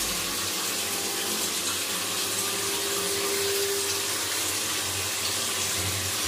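Water pouring steadily from the square overhead rain head of an electric instant shower, a smooth even splashing.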